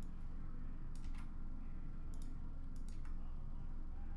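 A handful of scattered, separate clicks from a computer mouse and keyboard over a low steady hum.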